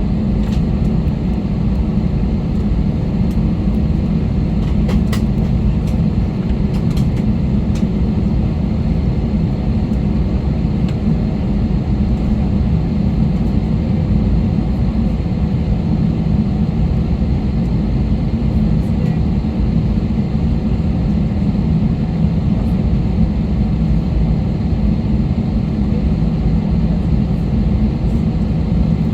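Airliner takeoff heard from inside the passenger cabin: a loud, steady low rumble of engines and runway, with a few faint clicks in the first several seconds.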